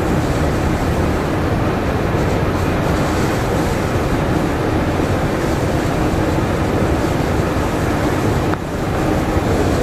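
Long metro-station escalator running: a steady, loud rumble and hiss of the moving steps and machinery, dipping briefly near the end.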